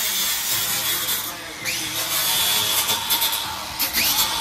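Handheld electric grinder with a small abrasive disc cutting into a car's exhaust pipe: a steady high motor whine over a grinding hiss. Its pitch dips briefly twice as the disc bites, about a second and a half in and near the end.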